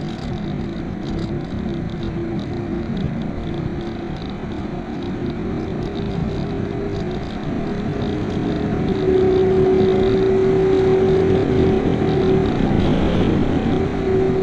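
Rushing airflow over a camera mounted on a glider in flight, with a steady droning tone running through it. Both get louder about nine seconds in.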